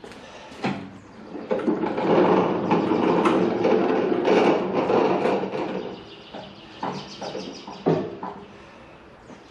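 Swivel casters of a wooden-platform dolly carrying a John Deere 54-inch snow thrower, rolling across a garage floor: a rough rolling rumble for about four seconds. There is a sharp knock near the start, a few clicks, and another sharp knock near the end.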